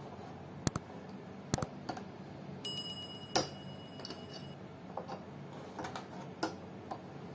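Metal binder clips being opened and pulled off a sheet of paper on a wooden board: a series of irregular sharp clicks, the loudest about three and a half seconds in. A short steady high tone sounds briefly around the middle.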